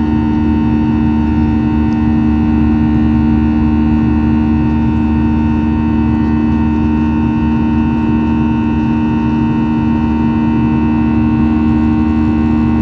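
Boeing 737-800 cabin noise: the CFM56-7B turbofan engines run steadily under a rushing air noise, with a constant two-tone drone and fainter high steady whines.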